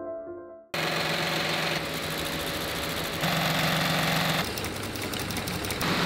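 Machinery running with a steady hum and fast, fine ticking. Its sound changes abruptly every second or so. A little music fades out just before it starts.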